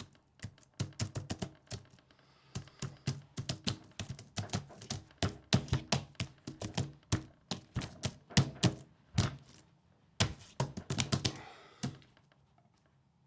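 Typing on a keyboard: quick, irregular keystrokes in runs, with short pauses about two seconds in and near the end.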